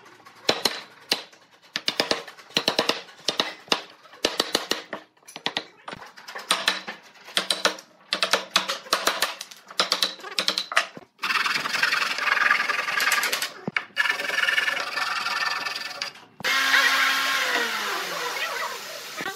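A wood chisel driven by repeated sharp blows, several a second, chopping the waste out of a notch in a pine beam. After about 11 seconds a louder continuous noisy sound with humming tones takes over and runs to the end.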